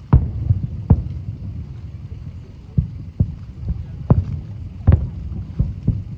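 Aerial firework shells bursting: a run of deep booms, about nine in six seconds at uneven spacing, over a steady low rumble.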